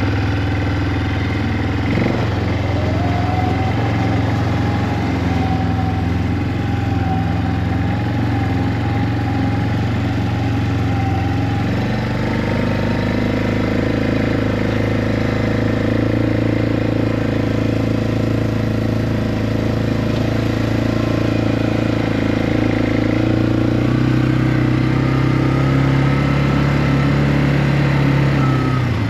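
Four-wheeler (ATV) engine running steadily, its note stepping up in pitch about twelve seconds in and again near the end.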